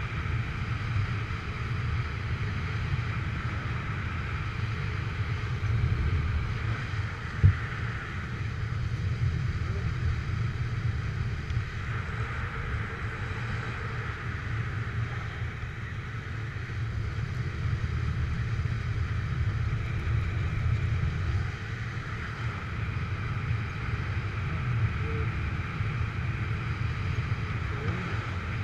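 Steady rush of airflow buffeting the microphone during descent under a paraglider wing, with a low rumble and a hiss that swell and ease slightly.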